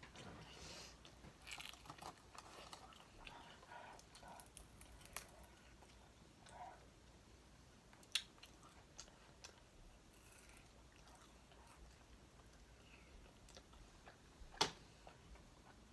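Close-up chewing of crispy fried chicken wings, with soft crunches through the first few seconds and two sharp cracks, about eight seconds in and near the end, the second one the loudest.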